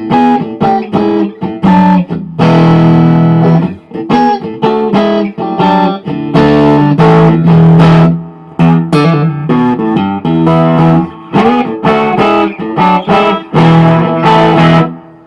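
Electric guitar with vintage-style single-coil Strat pickups played through a Sebago Double Trouble 25-watt combo's clean channel, voiced for a Vox AC30-like tone with the mid-range and bright switch up and the bass down. A passage of picked single notes and chords, several chords left ringing, stopping just before the end.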